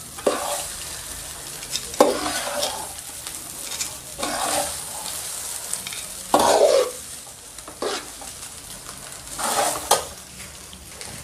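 Fried rice sizzling in a metal pan over a high flame while a metal spatula scrapes and turns it, about six scrapes roughly two seconds apart, the loudest a little past halfway.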